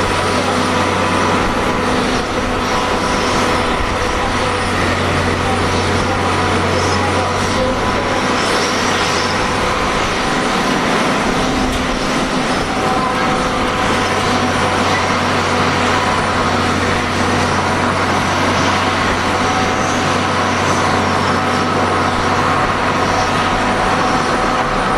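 Jet engines of a Boeing 767-300 airliner running steadily on the ground at low power, a steady whine of held tones over an even rush.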